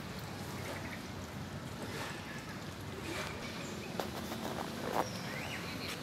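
Steady outdoor background noise with faint, short bird chirps and a couple of sharp clicks about four and five seconds in.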